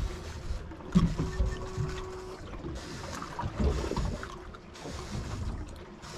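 Wind on the microphone and water slapping against a small boat's hull, an uneven low rumble with a few dull thumps.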